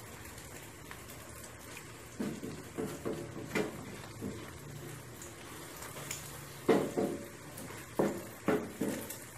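Spatula clanking and scraping against a wok while an egg omelette is flipped, over faint frying in the oil. The knocks come irregularly from about two seconds in, with the loudest ones in the last third.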